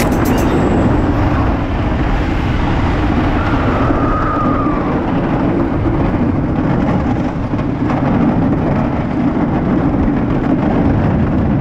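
Apocalypse all-wooden roller coaster train running at speed along its wooden track: a loud, steady rumble and rattle of the cars.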